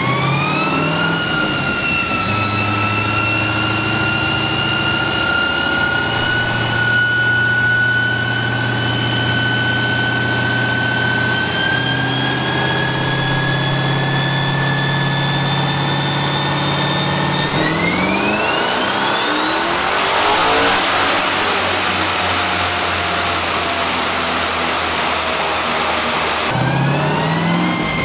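Twin-turbocharged 6.4-litre HEMI V8 of a 2013 Dodge Challenger SRT8 running on a chassis dyno, with a whine that climbs slowly in pitch. About two-thirds in it sweeps up steeply under full throttle into a loud rush. Near the end it cuts to another run rising in pitch again.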